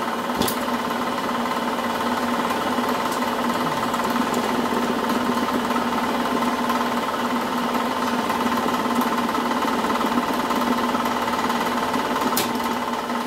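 Old Cochran-Bly milling machine running after long disuse, a steady mechanical hum with a held whine and a rapid rattle, a sharp click about half a second in and another near the end.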